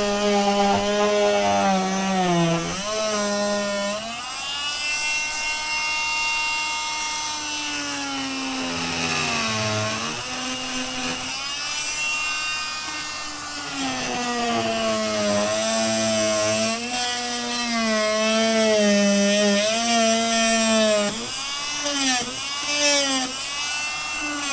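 Oscillating saw (multi-tool) running, its motor whine dipping and rising in pitch over and over as the speed changes, with quicker wobbles near the end.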